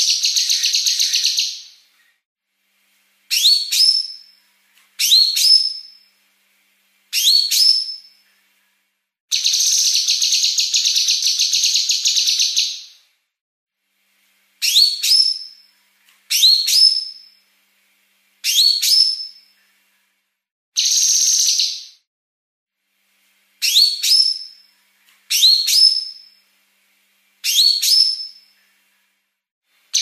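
Female blue-masked leafbird (cucak kinoi) singing a fast, tightly packed song. Short phrases of quick rising whistled notes, nine in all, alternate with three harsh buzzy rattling runs (besetan). The longest rattling run lasts about three and a half seconds, near the middle.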